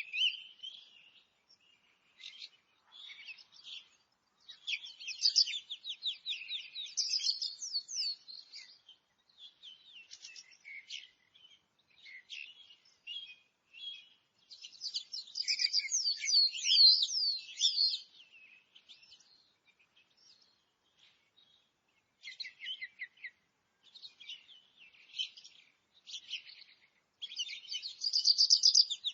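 Forest songbirds singing and chirping in bouts of rapid trills and twitters, with short quiet gaps between phrases.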